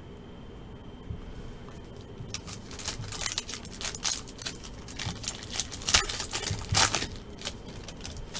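Foil trading-card pack wrapper being torn open by hand, a rapid run of crinkles and crackles starting about two seconds in and loudest near the end.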